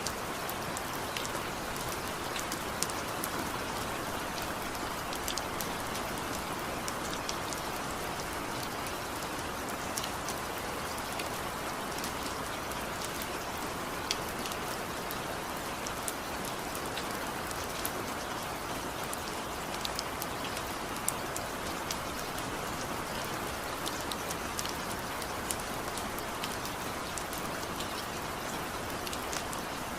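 Steady rainfall, a dense even hiss with individual raindrops landing as scattered sharp ticks throughout.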